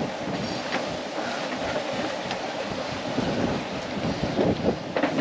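Steady rush of wind and sea water around a sailboat under way, with a few light clicks of line being hauled in by hand.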